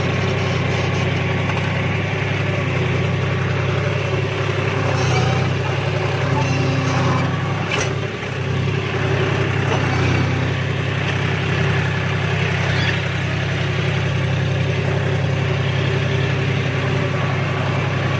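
John Deere tractor's diesel engine running steadily under load while pulling a disc plough through soil, with one brief click about eight seconds in.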